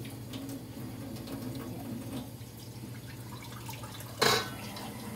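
Hamilton Beach glass electric kettle boiling a water-and-vinegar descaling solution: steady bubbling with scattered small pops over a low hum. One sharp knock about four seconds in.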